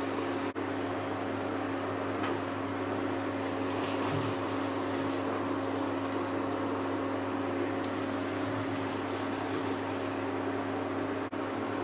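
Steady motor hum with an even hiss from an appliance running in a kitchen. It drops out for an instant about half a second in and again near the end.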